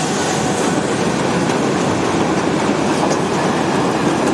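Freight train of double-deck car-carrier wagons rolling past close by: a loud, steady rumble of steel wheels on the rails.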